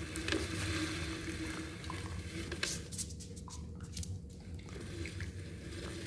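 Dandie Dinmont dog chewing and licking at something on the floor, with wet, squishy mouth sounds and a few sharp clicks near the middle.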